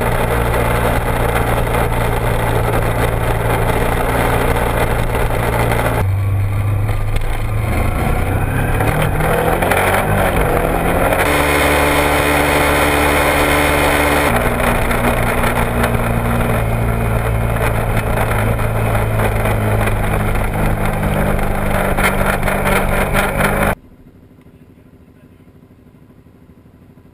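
Kawasaki Ninja 250R parallel-twin with a Dan Moto aftermarket exhaust running at road speed, with a steady rush of wind noise over it. The engine note changes abruptly several times and rises as the bike accelerates about eight to ten seconds in. Near the end the engine and wind cut off suddenly, leaving only a faint low background.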